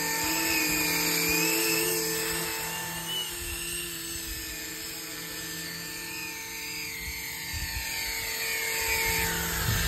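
Electric 450-size RC scale helicopter (Flish RC EC135) flying low: the high whine of its motor and ducted Fenestron-style tail fan over the rotor hum. It fades as the model flies off and grows louder again as it comes back, with its pitch falling near the end.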